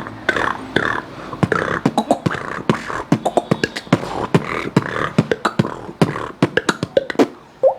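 Beatboxer's mouth-made sound effect: a fast, irregular run of clicks and pops mixed with breathy vowel-like sounds, with a short upward-gliding pop near the end.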